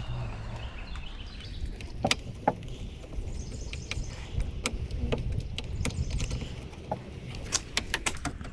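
Scattered light clicks and taps of a Torx driver and screws being worked out of a steering column cover, with a quicker run of clicks near the end.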